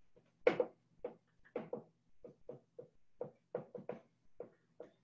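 Dry-erase marker writing on a whiteboard: a quick, irregular run of short, quiet scratching strokes, about fifteen in all, as letters are drawn.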